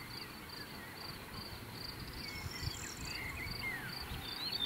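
A cricket chirping steadily, about two chirps a second, with a bird's short whistles and slurs joining about halfway through and growing louder near the end.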